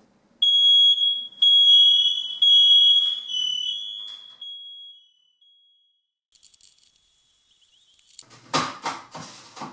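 Smoke alarm sounding three long, high beeps in quick succession, the last one trailing away. Near the end come a few knocks and rustles of handling.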